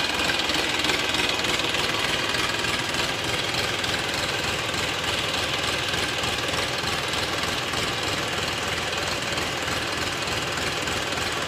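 Massey Ferguson 1035 tractor's three-cylinder diesel engine running steadily while driving a PTO-mounted water pump.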